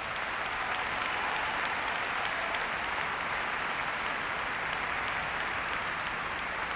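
A large audience applauding, steady throughout and easing slightly near the end.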